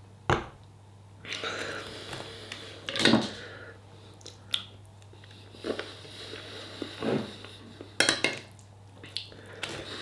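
A stemmed glass set down on the table with a single knock, then a metal fork clinking and scraping in a ceramic bowl of food, with chewing and breathing between the strokes.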